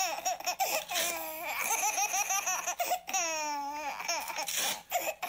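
A baby laughing in a run of short repeated bursts, with one longer, high-pitched squeal of laughter about three seconds in.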